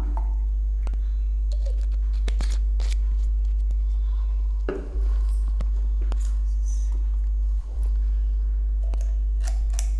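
Steady low electrical mains hum, with a few faint clicks and taps on top; the hum dips briefly twice, about five and eight seconds in.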